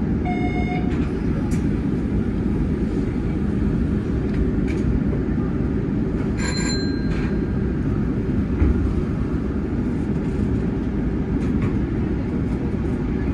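Inside the driver's cab of a Hanshin 9300 series electric train standing at a platform: a steady low hum from the train, with a short chime just after the start and a brief bell-like ding about six and a half seconds in.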